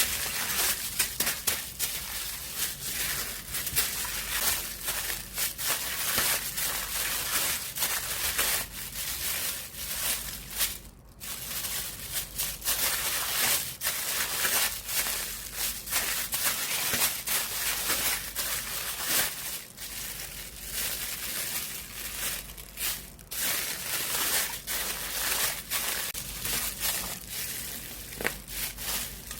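Water-vinyl slime being worked by hand, giving a continuous dense crinkling, crackling sound like thin plastic film, with a brief lull about eleven seconds in.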